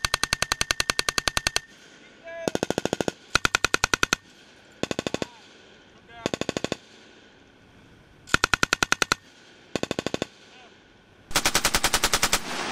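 Belt-fed machine guns, the M240 7.62 mm among them, firing on full automatic. One long burst stops about a second and a half in, followed by seven short bursts of under a second each with brief pauses between them.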